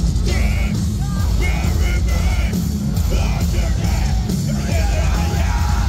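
Nu-metal band playing live at full volume, with a heavy low end and yelled vocals, picked up by a phone microphone in the crowd.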